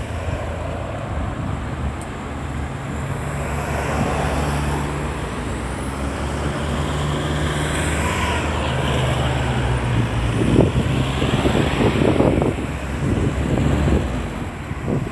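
Road traffic moving through a busy roundabout, with an engine running steadily under it for several seconds and vehicles passing.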